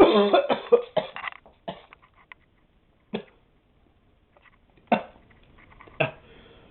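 A man coughing and clearing his throat after hot sauce hit the back of it: one long rough throaty burst at the start, then three short sharp coughs spread through the rest.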